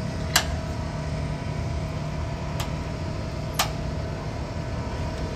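A steady machine hum with a faint steady tone, broken by three sharp clicks, one less than a second in and two more near the middle.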